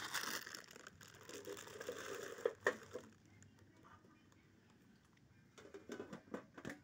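A plastic cat-food bag crinkles at the start. Then come faint, scattered crunches of cats chewing dry kibble pellets, a few clustered about two and a half seconds in and more near the end.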